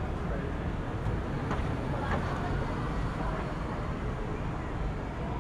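City street ambience: a steady low rumble of traffic, with faint voices of passers-by about two seconds in.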